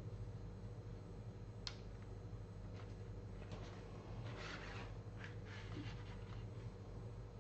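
Faint handling noises while small model parts are glued together: one sharp click, then scattered small clicks and a brief rustle, over a steady low electrical hum.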